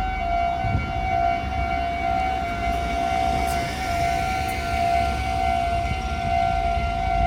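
Electronic railway level-crossing warning alarm sounding continuously: one repeating high tone, the signal that the barriers are down and a train is approaching. A low rumble runs underneath.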